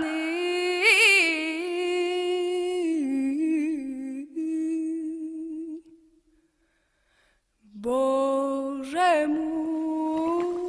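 A solo voice humming a slow, wordless melody in long held notes, breaking off about six seconds in and coming back with a new held note about two seconds later.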